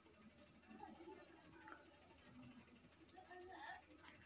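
Cricket chirping: a steady, fast-pulsing high trill that carries on without a break.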